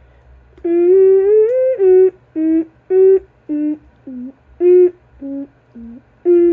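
A boy humming a tune without words: one long note that slowly rises, then about eight short notes that step up and down in pitch.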